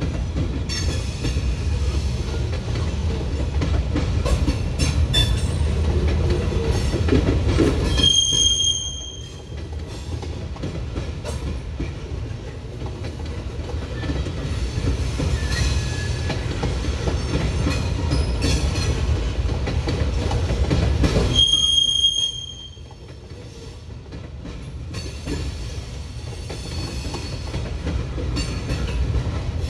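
Freight train rolling past with a steady low rumble of wheels and cars, and clicking of wheels on the rails. Two brief high-pitched wheel squeals, about eight seconds in and again a little after twenty seconds.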